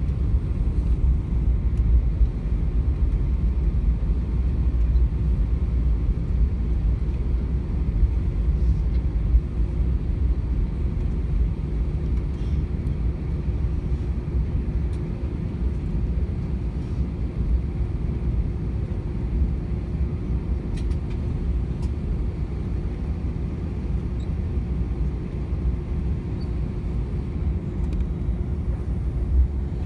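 Cabin noise of an Airbus A320 taxiing: a steady low rumble from the engines at idle and the airliner rolling along the taxiway, with a constant hum running through it.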